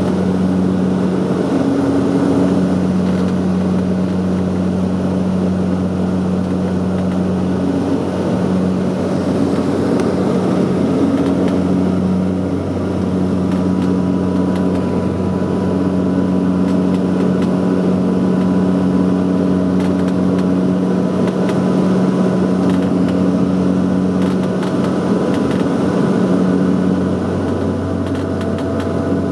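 Saab 340's twin General Electric CT7 turboprop engines and propellers heard inside the passenger cabin: a loud, steady drone with a low hum whose upper tone keeps fading in and out.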